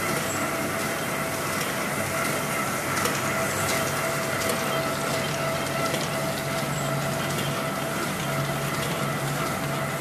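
Web-fed newspaper printing press running, paper web feeding through its rollers and folder: a steady mechanical clatter with a constant hum.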